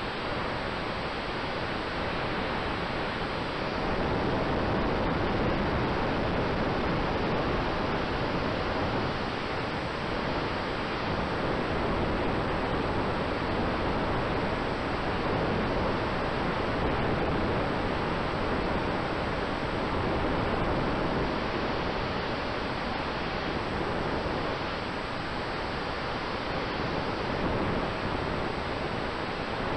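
Steady rush of wind over the onboard camera microphone of a flying large-scale model aircraft, a dense even hiss with a faint steady hum underneath, a little louder from about four seconds in.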